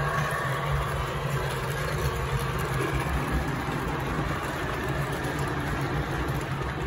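S gauge model freight train running past on the track: a steady low hum with the rumble of the cars' wheels on the rails.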